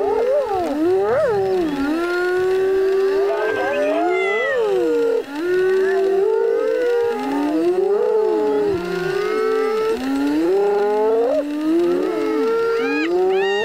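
A clan of spotted hyenas calling over one another as they crowd lions at a kill: many overlapping pitched calls that slide up and down, without a break.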